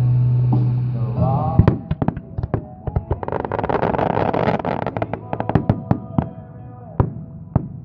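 Aerial fireworks going off over music: a held low note at first, then from about a second and a half in a rapid string of sharp bangs and cracks from bursting shells, thickest in the middle with a dense crackle.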